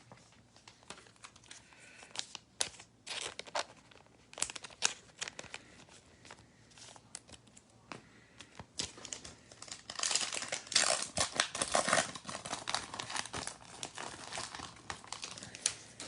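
Foil trading-card pack wrapper being torn open and crinkled by hand, an irregular crackle of plastic foil that is densest and loudest about two-thirds of the way through, with light card handling around it.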